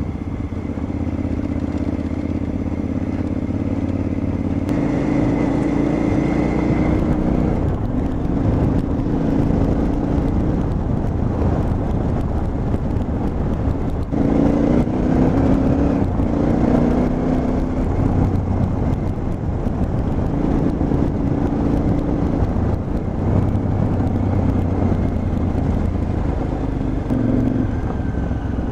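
KTM 950 Adventure's V-twin engine running on the move, heard from the rider's seat, its pitch rising and falling in steps as the throttle and gears change, over a steady rumble of tyres on a dirt track.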